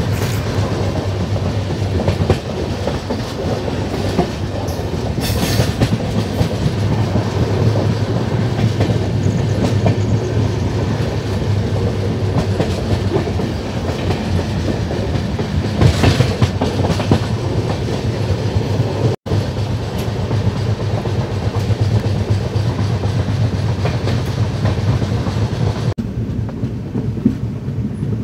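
Double-decker express train running along the track: a steady rumble of the wheels and coach, with brief louder rushes about five seconds in and again around the middle.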